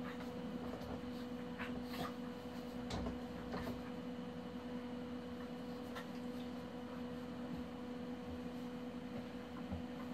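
A steady electrical hum at two pitches, with scattered light taps and scuffs, a few a second at most, as of animals moving and playing on a floor.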